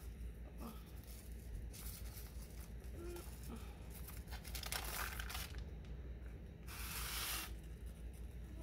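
Baking paper rustling and crinkling in three short bursts as a sponge cake is rolled up off it by hand; the loudest rustle comes about seven seconds in.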